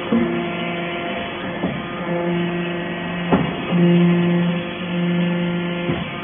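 Background music with held notes, broken by a few sharp knocks.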